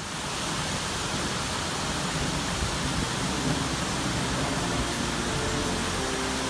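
Water pouring over a cascade of stone waterfalls into a pond: a steady, even rush. Faint music starts to come in near the end.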